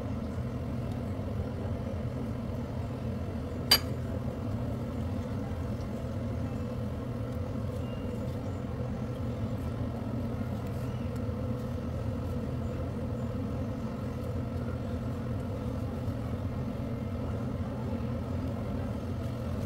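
A steady low mechanical hum with one sharp click about four seconds in.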